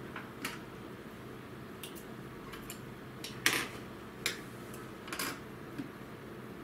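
Synthetic leather and coat fabric being handled by hand: a string of short rustles and soft taps as the piece is pressed, lifted and shifted, the loudest about three and a half seconds in.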